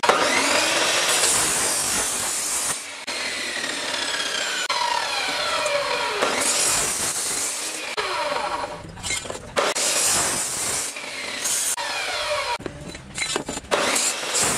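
Electric abrasive chop saw cutting steel pipe, its whine falling in pitch again and again as the disc bites into the metal. In the second half it stops and starts again for several short cuts.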